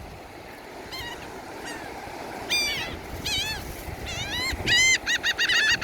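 Seagulls calling: a few scattered squawks, then a quick run of loud, repeated calls near the end, over a steady background rush.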